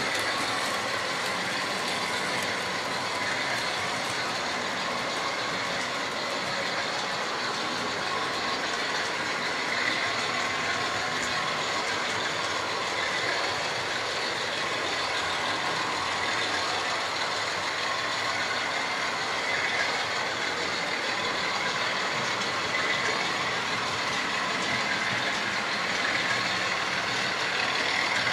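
Model trains running on a layout: the steady whine of small locomotive motors with the rumble of wheels on the track.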